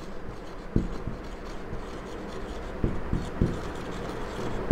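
Dry-erase marker writing on a whiteboard: faint rubbing strokes, with a few soft knocks of the marker against the board, one about a second in and three close together about three seconds in.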